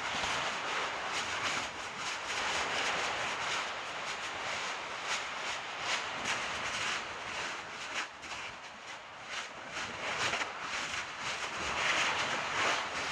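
Crackling and popping from a creeping lava flow and the brush and wooden utility pole burning at its front, over a steady hiss.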